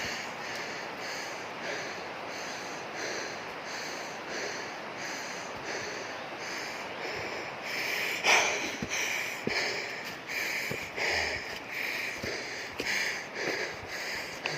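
A man's heavy, rhythmic breathing, about two breaths a second, from exertion while climbing a steep slope, with one stronger breath about eight seconds in.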